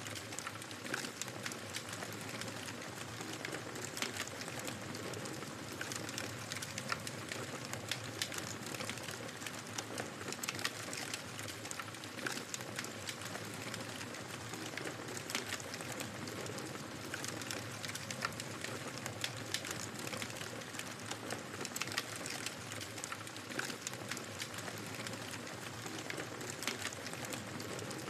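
Wood fire burning in a fireplace: a steady hiss with frequent irregular sharp crackles and pops from the burning logs.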